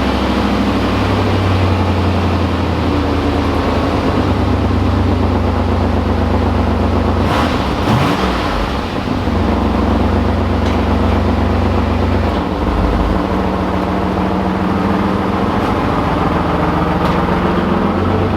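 A 1991 Pontiac Firebird Formula's 305 Tuned Port Injection V8 running on its newly replaced distributor, with the timing freshly set. The engine note shifts about eight seconds in and again about twelve seconds in.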